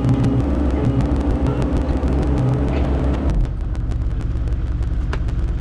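Mini excavator engine running, with a lower, quieter running from about three and a half seconds in, as the load or throttle eases.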